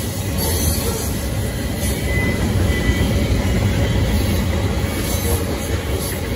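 Freight train cars, tank cars and a gondola, rolling past on steel rails: a steady low rumble of wheels on track.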